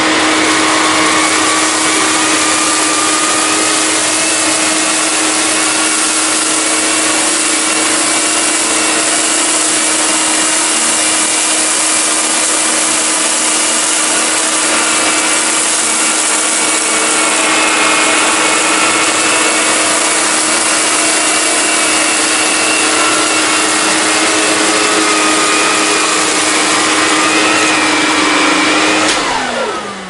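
Electrolux Grand Marquise model 1521 canister vacuum cleaner running with its power nozzle, pushed back and forth over carpet; a steady whine whose higher tones waver slightly as the nozzle moves. About a second before the end it is switched off and the motor winds down, its pitch falling.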